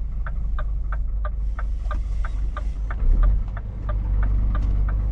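Scania V8 truck heard from inside the cab: the engine's steady low drone under a turn indicator clicking evenly, about three clicks a second. A dull low thump comes about three seconds in.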